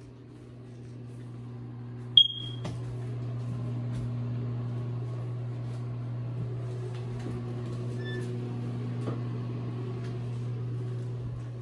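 A steady low hum that grows slightly louder over the first few seconds, with one short, high-pitched electronic beep about two seconds in.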